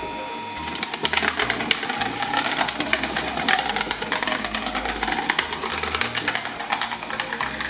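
Twin-shaft shredder's steel cutting teeth chewing up a cardboard Monopoly board: a dense, continuous crackling and crunching of tearing cardboard that starts about a second in.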